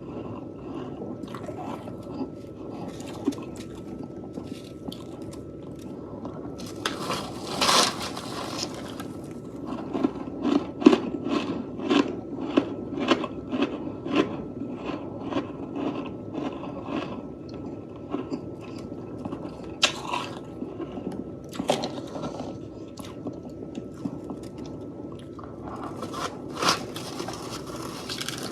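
A person chewing mouthfuls of fluffy freezer frost close to the microphone: a run of crisp, rapid crunches, with a few longer, louder crunches along the way.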